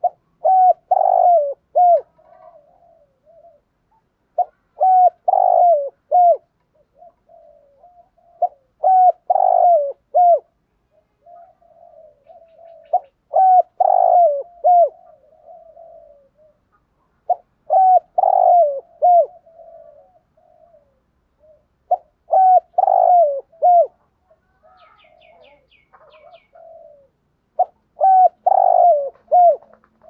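Caged spotted dove, a decoy male, giving its repeated coo song: seven phrases of several notes each, about every four seconds, with softer cooing between them.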